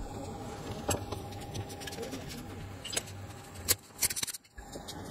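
Scattered light clicks and taps of soldering tools being picked up and handled over a bare circuit board, with a few sharper clicks in the second half, over a steady low hum.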